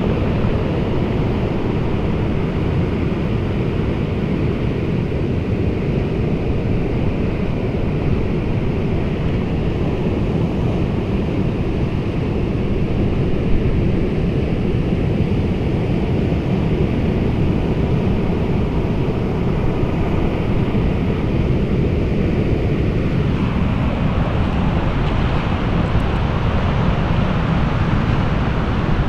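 Storm sea surf rumbling steadily against a stony beach, mixed with strong wind buffeting the microphone.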